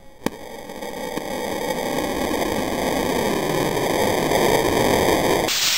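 Homemade PET-bottle rocket with boosters launching: a sharp click, then a rushing hiss from the motors that builds over several seconds and cuts off abruptly near the end.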